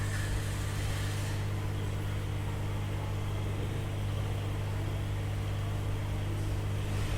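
Steady electrical hum with a low, even buzz, with a brief airy hiss just at the start.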